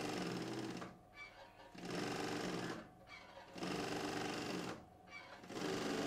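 Treadle sewing machine stitching in short runs of about a second, stopping and starting again roughly every two seconds, with a fast even clatter of the needle mechanism.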